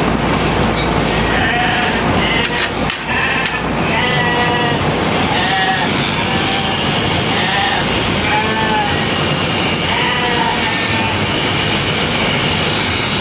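Sheep bleating again and again, a dozen or so short calls, over a constant noisy din.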